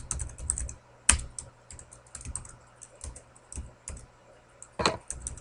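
Typing on a computer keyboard: irregular runs of quick keystrokes, with a few louder, heavier key strikes at the start, about a second in and near the end.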